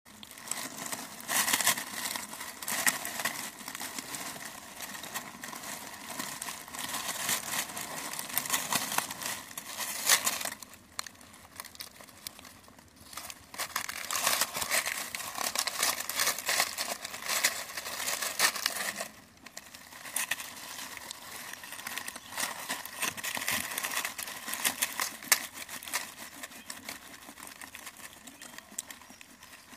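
Dry leaves crackling and rustling as a hedgehog shuffles and pushes through its leaf nest, in spells of several seconds with two short pauses.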